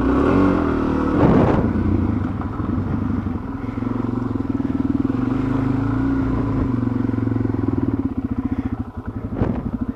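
Dual-sport motorcycle engine running at low, gently varying revs while the bike slides about on slick mud. There is a short burst of noise about a second in and a sharp knock near the end.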